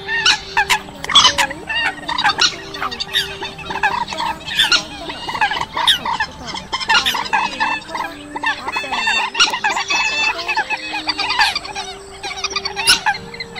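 Bird-netting lure recording of Eurasian coot calls layered with trích ré (rail) calls, many short calls overlapping without a break.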